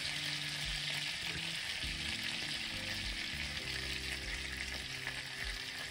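Butter sizzling steadily in a hot frying pan as fresh lime juice is squeezed into it, a continuous crackling hiss.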